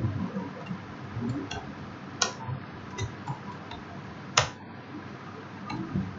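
Computer keyboard typing: scattered light key clicks, with two louder clicks about two seconds and four seconds in.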